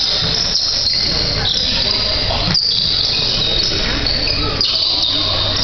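Noise of a basketball game on a hardwood gym court, topped by continuous high-pitched squeaking typical of sneakers on the floor.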